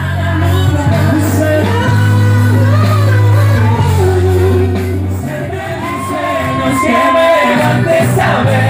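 Live band music with a male singer singing into a microphone over a steady bass line.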